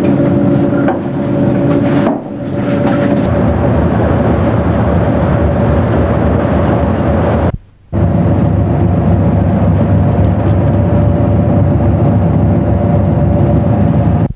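Loud, steady drone of a fishing trawler's engines and machinery, with a constant hum running through it. It cuts out for a moment about halfway through.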